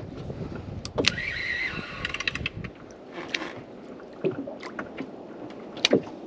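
Sounds aboard a small FRP fishing boat afloat: a few sharp knocks of gear against the hull, a brief whirring about a second in, over a low steady wash of water and wind.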